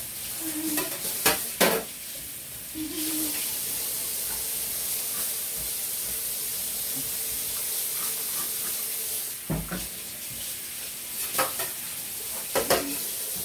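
Kitchen tap running into a stainless steel sink during washing-up, a steady hiss of water. A few sharp knocks of dishes against the sink are heard.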